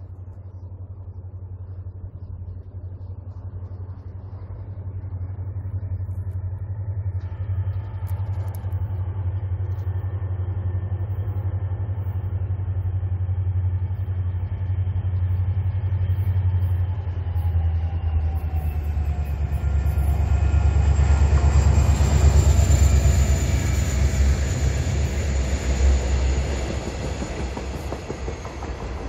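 Diesel locomotive hauling a train of ballast hopper wagons approaches and passes. Its low engine rumble grows steadily louder, is loudest a little past twenty seconds in as the locomotive goes by, then eases as the hopper wagons roll past.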